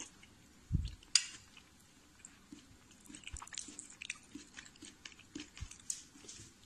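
A person chewing food close to the microphone, with many small, quick mouth clicks. About a second in there is a dull knock and then a sharp click.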